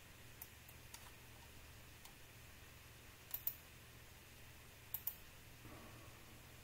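Computer mouse clicking in a quiet room: two single clicks, then two quick double clicks about a second and a half apart, over a faint steady low hum.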